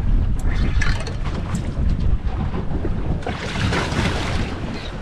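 Wind buffeting the microphone on an open boat at sea, a constant low rumble, with water splashing at the surface and a louder rush of splashing a little past three seconds in.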